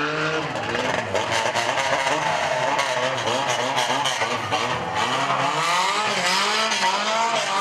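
Several banger race car engines revving together, their notes rising and falling as they accelerate and lift off, with scattered sharp knocks.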